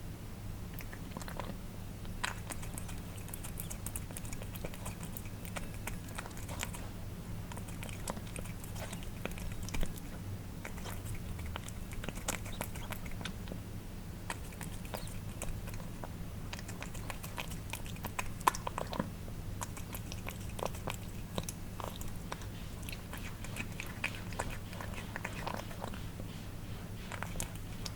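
Cats eating wet food, with irregular wet smacking and licking of tongues on the soft food and small chewing clicks over a steady low hum.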